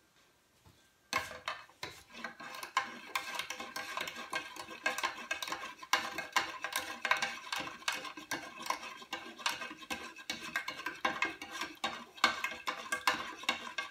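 Salt brine being stirred in a plastic measuring jug, with rapid scraping and clicking against the jug's sides as the salt dissolves. It starts about a second in and goes on busily to the end.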